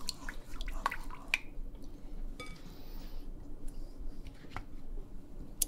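Scattered light clicks, taps and soft squishes of potato slices being laid into the bottom of a pot with a little oil and water, over a steady low hum.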